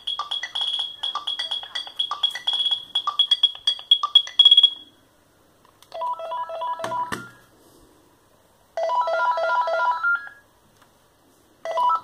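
Philips Fisio 620 mobile phone ringtone: a fast, rhythmic beeping tune plays for the first four to five seconds and stops. After a pause, short snatches of other ringtone melodies start and cut off abruptly, as previews while the ringtone list is scrolled. A single knock of the handset being handled comes about seven seconds in.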